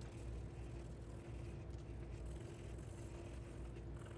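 Faint room tone: a steady low hum with a constant faint tone above it, and no distinct sanding strokes.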